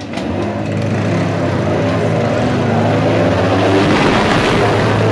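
Small motor scooter engine running as the scooter comes up the narrow alley and passes close by, getting louder to a peak about four seconds in.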